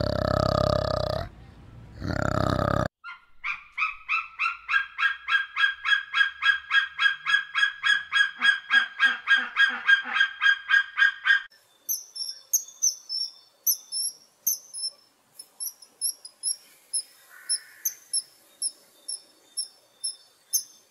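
An orangutan's low call, which breaks off about a second in and comes back briefly. Then an eagle gives a fast, even series of calls, about five a second, for some eight seconds. After that come the short, high twittering chirps of swallows.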